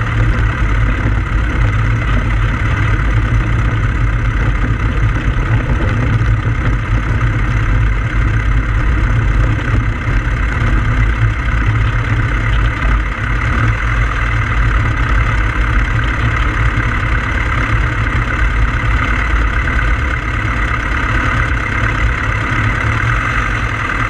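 The engine of a Pou-du-Ciel (Flying Flea) ultralight running steadily while the plane rolls across grass, heard close up from a camera mounted on the fuselage, with a deep rumble under it.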